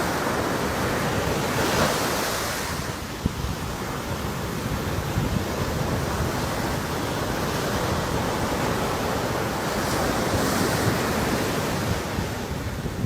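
Sea surf washing in continuously, swelling louder about two seconds in and again near the end, with wind noise on the microphone.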